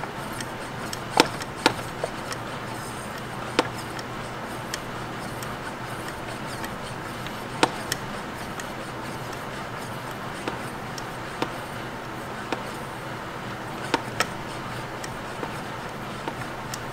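Hand pump of a brake pressure bleeder being worked to pressurise the brake fluid reservoir, with scattered sharp clicks and knocks at irregular intervals over steady background noise.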